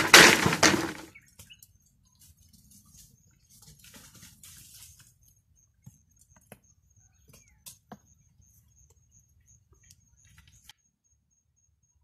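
A long wooden pole dropped down by a pile of bamboo poles, a loud clatter and crash of wood and dry litter in the first second. Then softer rustling and scattered light taps as a long vine is handled, and the sound cuts off abruptly near the end.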